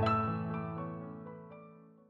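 Soft background music ending: a last chord rings and slowly fades out.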